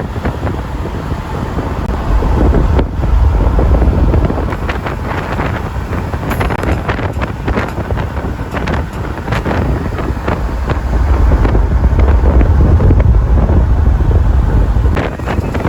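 Wind buffeting the microphone over outdoor vehicle noise, with a heavy low rumble that swells loudest around three seconds in and again from about eleven to fifteen seconds.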